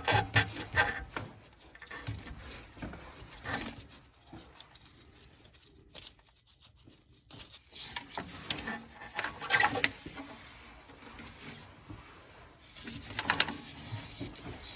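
Scattered light metal clicks and rubbing as a stuck swivel and 10 mm socket are worked off an engine block drain plug by a gloved hand, with a quiet stretch in the middle and a few sharper clicks near the end.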